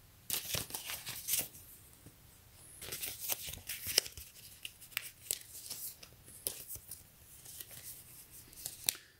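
A paper invoice rustling and crinkling as it is handled and unfolded: a short run of crackles in the first second, then a longer stretch of crinkling from about three seconds in until near the end.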